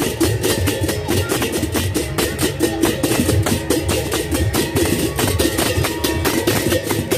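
Sasak gamelan betep processional ensemble playing a fast, driving beat of drums and crisp clashing percussion strokes.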